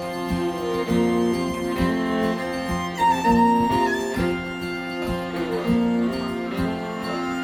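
Instrumental music: a fiddle playing held melody notes over plucked guitar, with a higher sustained note about three seconds in.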